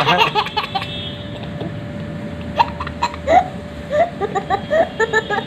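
A young child giggling in short bursts, with a run of quick giggles near the end.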